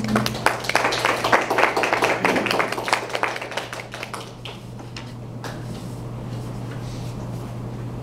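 A small audience applauding, a few people clapping that fades out after about four seconds, over a steady low hum.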